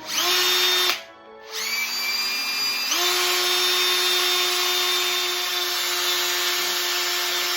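Electric hand drill spinning a buffing pad loaded with polishing paste against a plastic helmet visor, to polish out sanding fog. It runs in a short burst of under a second, stops briefly, then runs again, its whine stepping up to a higher speed about three seconds in, and stops near the end.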